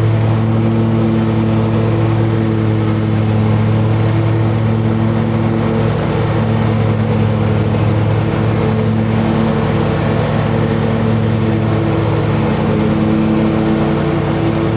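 Riding lawn mower's engine running steadily while mowing, a loud even hum with no change in speed.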